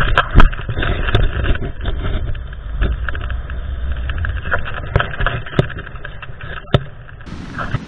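Wind buffeting the microphone of a camera carried on a paraglider in flight: a loud, uneven rumble with scattered sharp clicks and knocks. About seven seconds in it changes to a steadier hiss.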